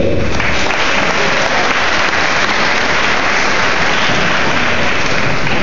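Audience applauding in a large gymnasium hall, a dense clapping that builds quickly and fades away near the end.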